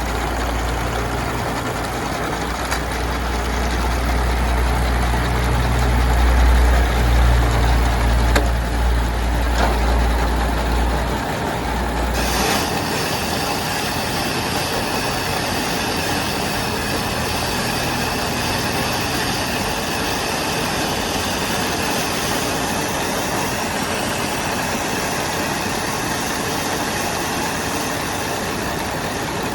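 Animal-feed processing machine running steadily. For about the first twelve seconds there is a heavy low hum. Then the low hum drops away with a click, and a steadier, higher-pitched running sound carries on.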